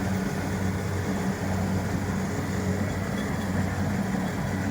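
Kubota rice combine harvester running steadily while harvesting, its engine a constant low hum under the clatter of the machine.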